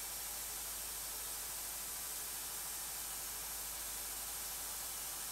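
Coolant vacuum-fill machine running, a steady even hiss as it holds the engine's cooling system under vacuum before the refill.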